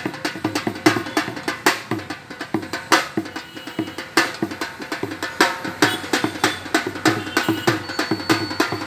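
Percussive music with a fast, steady drum rhythm, dense with sharp strikes several times a second.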